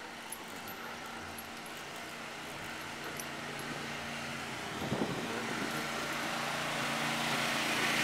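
Street traffic noise with a vehicle engine running, growing louder through the second half, and a short knock about five seconds in.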